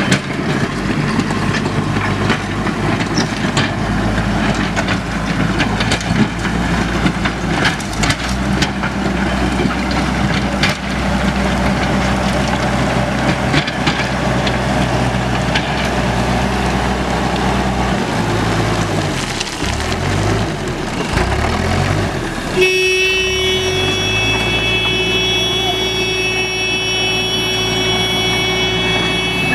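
Diesel engine of a JCB earthmover running steadily under work. About two-thirds through, its speed rises and falls several times. A few seconds later the sound changes abruptly to a different steady engine sound with several high, held whining tones.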